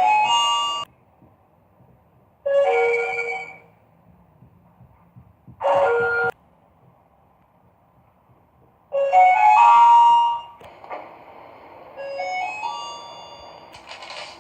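Sigma elevator electronic chimes sounding five times: quick rising runs of short tones at the start, about nine seconds in (the loudest) and about twelve seconds in (softer), with shorter single chimes about two and a half and six seconds in.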